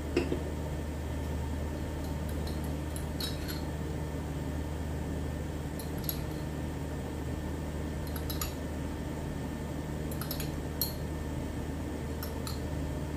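A metal spoon clinking lightly against a small glass bowl, about half a dozen scattered taps, as orange food-colouring liquid is spooned out over rice. Under it runs a steady low hum.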